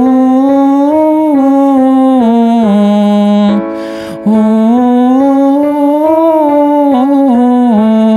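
A voice singing the vowel "oh" in chest voice as a vocal exercise: a scale pattern stepping up and back down, sung twice with a short break between, over a keyboard accompaniment.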